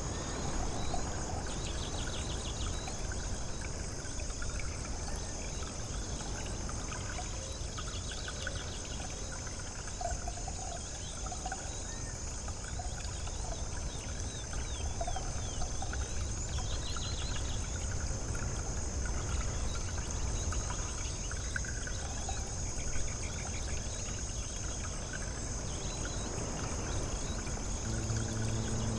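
Layered outdoor ambience: a steady rushing wash of noise with birds chirping and trilling here and there. A constant high, thin drone sits over it.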